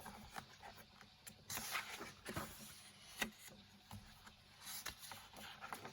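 Pages of a colouring book being turned and handled: faint paper rustles with a few soft taps.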